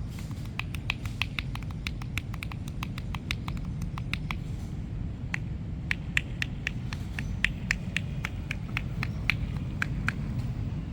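Quick sharp slaps or taps of hands on skin during a massage, a few per second in two runs, over a steady low rumble of background noise.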